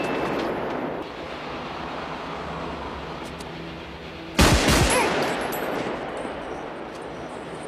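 Gunfire from a Colt Model 654 rifle: a quick burst of several shots about four and a half seconds in, echoing and dying away slowly. The echo of earlier gunfire fades out in the first second.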